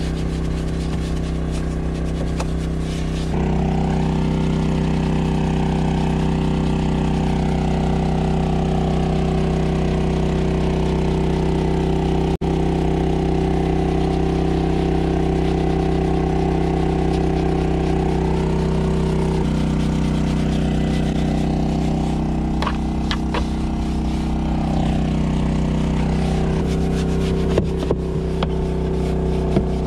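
Small portable generator engine running steadily, its pitch and level stepping up or down abruptly a few times as it changes speed. A few light clicks come near the end.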